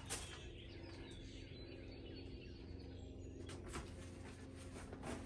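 Quiet handling of potting soil being scooped and dropped by hand into a burlap-lined hanging basket: a short click at the start and a few soft taps and rustles over a faint steady hum.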